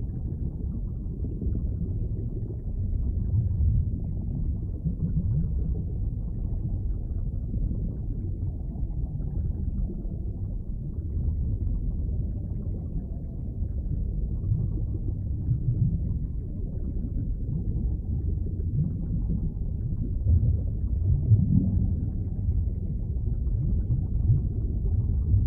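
Underwater ambience: a steady, low, dull rumble of moving water that swells and eases slowly, with a few louder surges about three-quarters of the way through.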